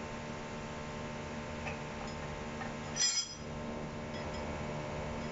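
Steel clutch plates for a U441E automatic transaxle clinking as they are handled and fitted into the case: one bright metallic clink with a short ring about three seconds in, over a steady low hum.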